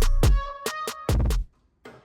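Background music with a steady beat and deep bass, which drops out about a second and a half in.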